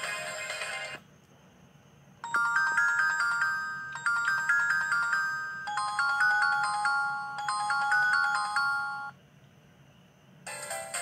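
Kyocera mobile phone ringtone played through the phone's speaker: a simple chiming tune of quick bell-like notes, one short phrase played four times, shifting lower for the last two. The tail of a busier ringtone ends just before it, and another busier ringtone begins near the end.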